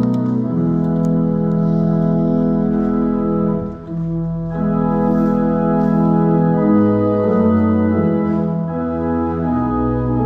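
Organ playing offertory music: held chords that shift every second or so, with a short break about four seconds in.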